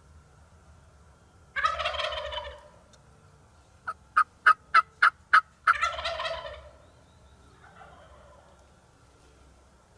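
Wild turkey gobbler gobbling loud and close, then a quick run of about seven sharp turkey clucks, answered at once by a second loud gobble; a fainter gobble follows near the end.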